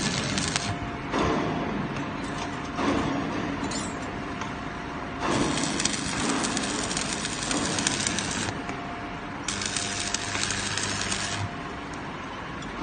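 Electric arc welding crackling and sizzling in several runs, the arc breaking off and restarting a few times.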